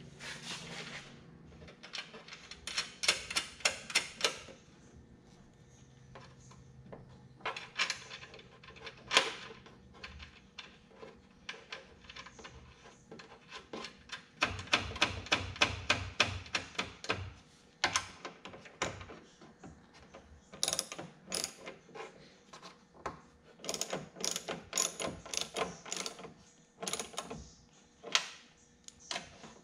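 Hand ratchet wrench clicking in several quick bursts as bolts are turned, with short pauses between the runs.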